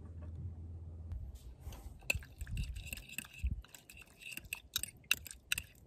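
A metal spoon stirring thick mayonnaise tartar sauce with chopped pickle in a small container: an irregular run of wet squelches and quick scraping clicks, starting about a second in.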